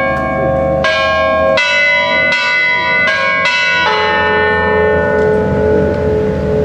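Church bells of a tuned five-bell concert struck by electric hammers while hanging still, playing a melody. Five strokes on different bells come about three-quarters of a second apart, and after the last one, about four seconds in, the notes ring on and slowly fade.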